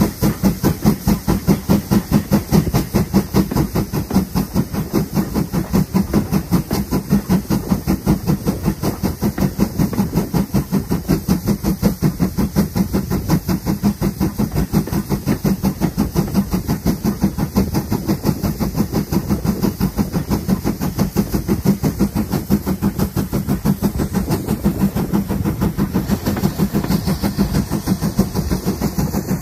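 GWR 4200 class 2-8-0 tank locomotive No. 4270 running under steam, its exhaust beating in a steady, rapid, even rhythm, with steam hissing alongside.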